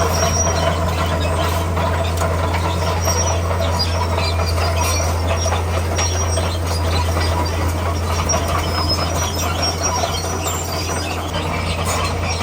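D41P crawler bulldozer's diesel engine running steadily with a constant low drone, with intermittent squeaking and clatter from its steel tracks as it works rock.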